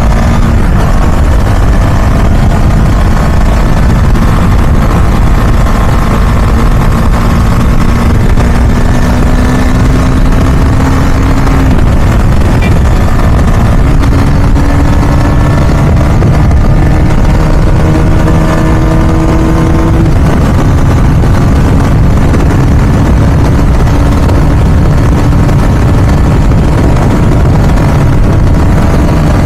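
Husqvarna Vitpilen 250's single-cylinder engine pulling hard at high speed on a top-speed run. Its note climbs slowly, breaks about twelve seconds in and drops slightly about twenty seconds in, then holds steady. Heavy wind rush runs underneath.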